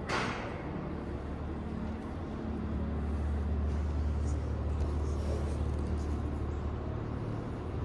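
Steady low rumble of an idling engine, with a brief sharp rattle at the very start.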